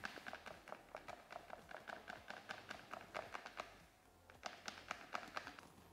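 Faint, quick light taps of a flour shaker being tapped to dust flour into a buttered metal tart tin, about five taps a second, with a brief pause about four seconds in before a few more taps.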